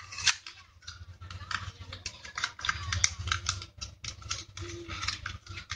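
Plastic packaging of a RAM module being handled and pried at by hand, giving a run of quick, irregular crinkles and clicks.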